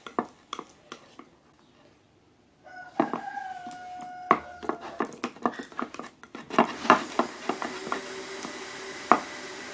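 Slime being stirred in a bowl with a utensil: irregular sticky clicks and taps of the thickening glue mix. A long held call sounds in the background about three seconds in, and a steady rushing noise starts about two-thirds of the way through.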